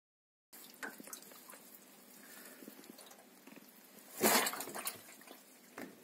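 Soggy kitchen roll pulp being squeezed and handled by hand: soft wet squelching with small clicks, and one louder squelch about four seconds in.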